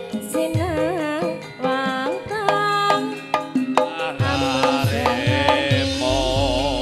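Javanese gamelan music for a tayub dance. A female singer (sinden) sings a wavering, ornamented melody over ringing metallophones and gongs. The kendang hand drum plays steady low strokes about twice a second.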